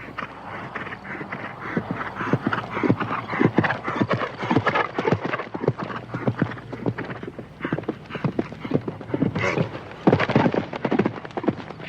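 A horse's hooves galloping over a jumping course: fast, uneven hoofbeats, with the heaviest hits about ten seconds in.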